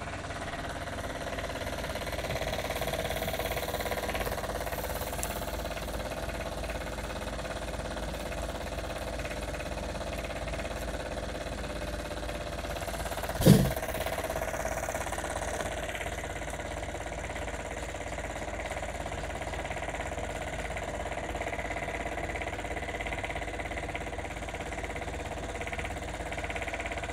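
Wilesco D22 toy steam engine running steadily, driving a string-belt line shaft that spins a glass of cream. A single loud thump about halfway through.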